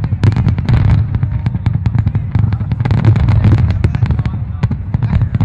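Fireworks barrage: many shells bursting in quick succession, a dense run of sharp bangs and pops over a continuous low rumble of booms.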